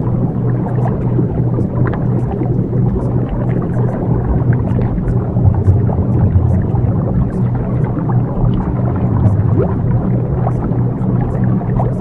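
Ambient subliminal backing track: a steady low hum of held tones, the kind used as a delta-wave frequency, under a rumbling, watery wash of noise with scattered faint chirps and short glides.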